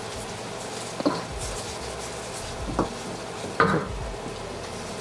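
Wooden spoon stirring shrimp paste, shallot and garlic in a stainless steel wok, with a steady sizzle of oil and a few sharp knocks of the spoon against the pan.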